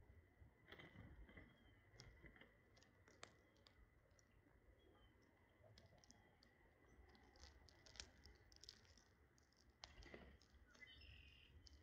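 Faint, irregular clicks and taps of small birds pecking at food, with a few brief faint chirps.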